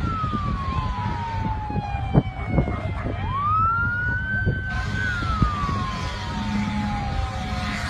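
Emergency siren wailing, a single tone that rises quickly and then falls slowly, cycling about every five seconds, over a steady low rumble with a few sharp knocks a couple of seconds in.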